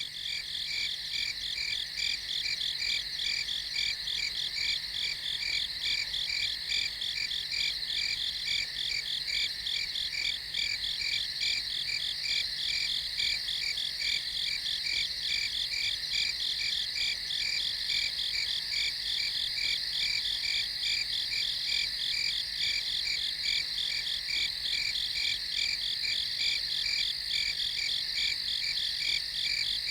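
Night chorus of crickets: steady, dense rapid chirping at several pitches, unbroken throughout.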